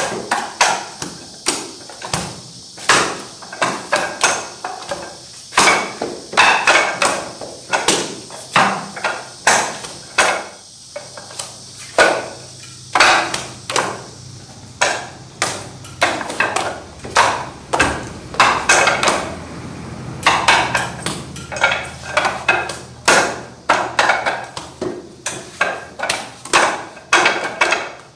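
Wing Chun wooden dummy being struck through its form: a quick, irregular run of sharp wooden knocks and slaps as hands and forearms hit the dummy's wooden arms and padded trunk, often two or three in fast succession.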